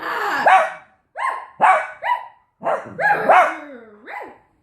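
Dogs barking in play, a quick run of about eight short, high-pitched barks with gaps between them.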